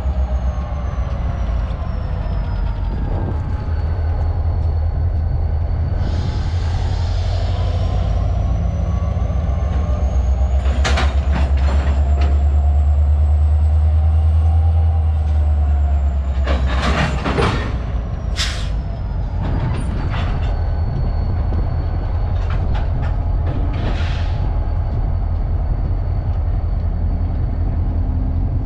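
Diesel-electric locomotive (an EMD SD40-2XR with its 16-cylinder 645 two-stroke engine) running under load while switching cars: a heavy steady rumble, with a high whine that slides slowly up and down in pitch. A few sharp clanks come about ten seconds in and again around seventeen seconds.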